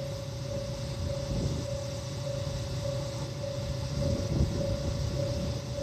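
Kanto Railway diesel railcar idling at a station platform, a steady low engine rumble. Over it, a repeating electronic tone sounds a little under two times a second.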